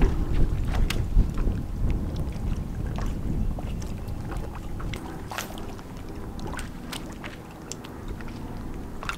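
Wind rumbling on the microphone and water lapping against a bass boat's hull, loudest in the first couple of seconds and then easing, with a few faint clicks.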